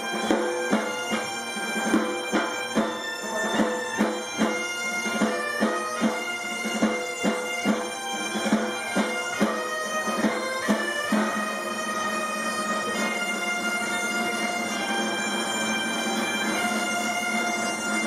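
Asturian gaitas (bagpipes) playing a tune over a steady drone. A rope-tensioned side drum beats about twice a second, then stops about eleven seconds in, and the pipes play on alone.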